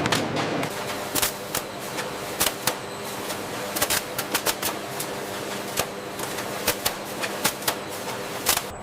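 Machinery clattering: irregular sharp clicks and knocks over a steady mechanical hum.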